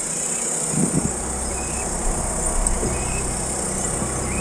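Off-road vehicle engine idling: a steady low rumble under a constant high hiss.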